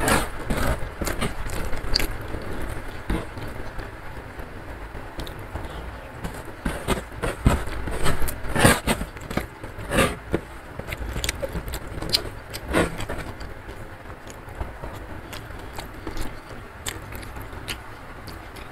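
Close-miked eating sounds: chewing and wet mouth clicks and smacks as rice is eaten by hand, with fingers scraping the leftover grains across a wooden tray. The sounds come irregularly and are busiest around the middle.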